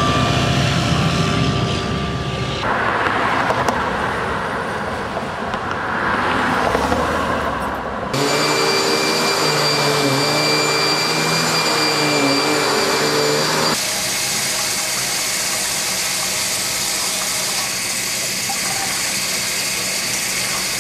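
Steady machine and engine noise in several cut-together segments, changing abruptly about three, eight and fourteen seconds in; the middle segment carries a wavering motor hum.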